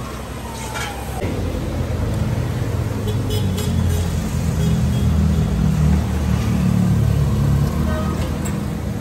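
A motor vehicle's engine rumbling past on the street, building to its loudest in the middle and then easing off. A few light metal clinks come from the steel food trays.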